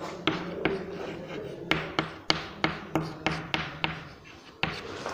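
Chalk writing on a chalkboard: a string of sharp, irregular taps, two or three a second, as the chalk strikes the board, with soft scraping between strokes.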